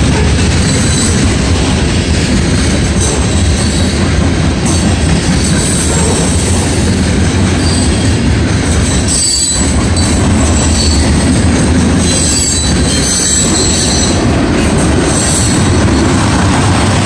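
Freight cars of a CSX mixed manifest train rolling past close by, a loud, steady rumble and rattle of steel wheels on rail, with high-pitched wheel squeal coming and going.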